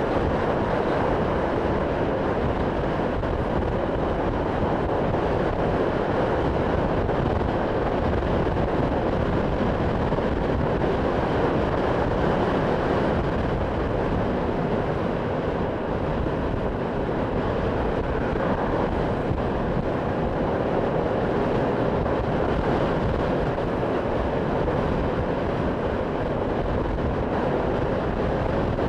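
Steady wind rush and road noise from a motorcycle riding at an even cruising speed, picked up by a microphone on the bike.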